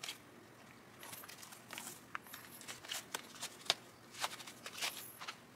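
Shoelaces being loosened and pulled on a pair of running shoes: faint, irregular rustles and small flicks of lace against the shoe fabric.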